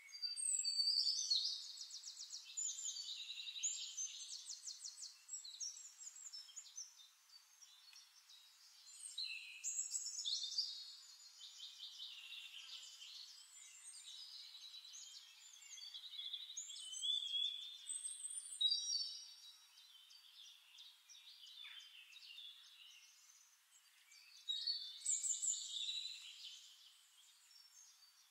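Birdsong: high, trilled and chirping phrases, each a second or two long, recurring every few seconds.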